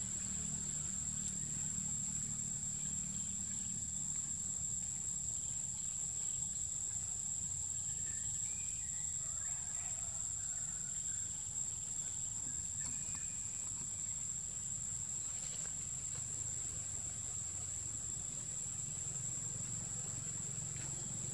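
Steady, unbroken high-pitched drone of insects, with a low steady rumble beneath it.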